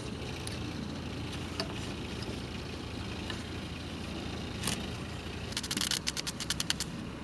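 Steady low background rumble, with a few small clicks and, near the end, a quick run of ticks as hands twist a thin wire around nails in a wooden plank.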